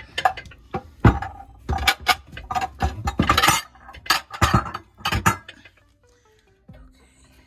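Dishes and bowls clattering and clinking as they are moved and stacked into a crowded kitchen cabinet. There is a quick run of knocks and clinks, busiest around the middle, and it dies away a little after five seconds in.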